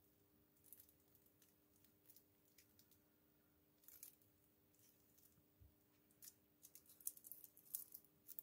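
Faint rustling and crinkling of thin cigarette rolling paper being handled for a black-powder paper cartridge, in short scattered rustles that come thicker near the end, over a faint steady hum.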